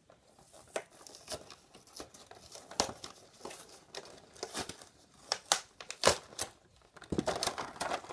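A boxed action figure being opened by hand: cardboard tearing and plastic packaging crinkling in short, irregular bursts, busier near the end.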